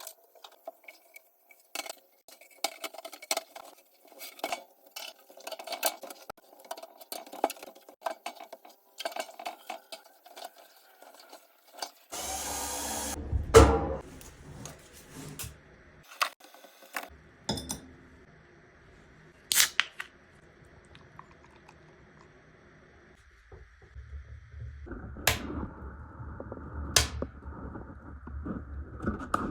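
A string of short work sounds from installing a wood-burning sauna stove and its stovepipe: clicks, knocks and metal clatter of tools and parts, with a short loud burst of noise about halfway through. A low steady rumble comes in during the last few seconds.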